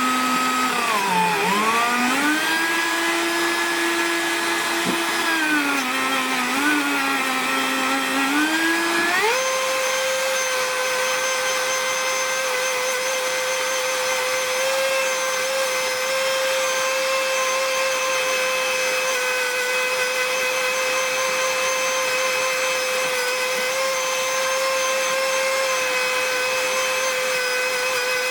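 Ryobi P460 18-volt cordless rotary tool running with a loud whine while an abrasive sanding pad cleans rust off a piece of metal. Its pitch dips and wavers for the first nine seconds or so, then jumps higher and holds steady.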